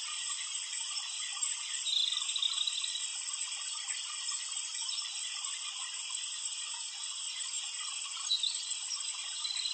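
Light rain falling: a steady high hiss with a fine, even patter of drops.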